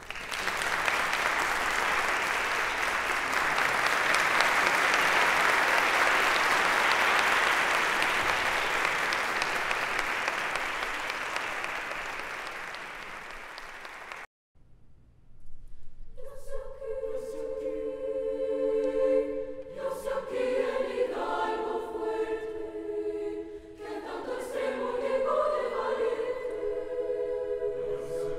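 Audience applause for about fourteen seconds, cut off abruptly. After a short pause, a mixed-voice high school choir begins singing sustained chords.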